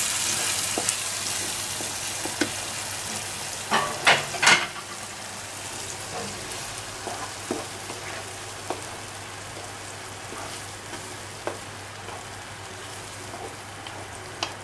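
Grated tomato sizzling in a hot nonstick frying pan over sautéed onion, stirred with a wooden spoon. The sizzle dies down over the first few seconds. About four seconds in come three sharp knocks of the spoon on the pan, then lighter scrapes and taps.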